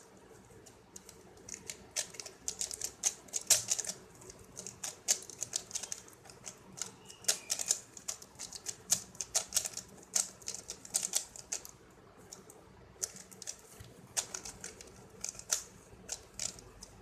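3x3 Rubik's Cube being scrambled by hand: its plastic layers are turned in quick runs, making rapid, irregular clicking with brief pauses.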